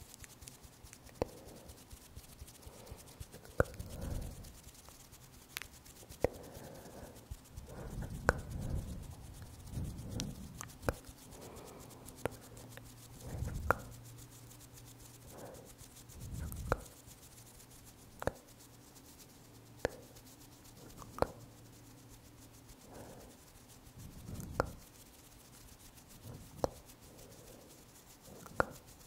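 Fingers rubbing and scratching close to the microphone, with soft rubbing swells and sharp clicks every second or two.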